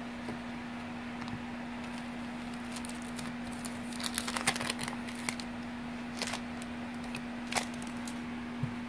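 Trading cards being handled: a few short rustles and crisp clicks as slick baseball cards are slid and flipped, bunched about four to five seconds in. A steady low hum runs underneath.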